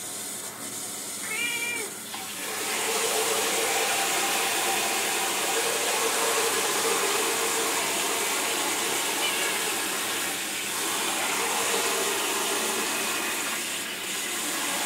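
A Scottish Fold cat gives a short meow about a second and a half in. Then water starts running steadily from a handheld shower head into the bathtub, the loudest sound.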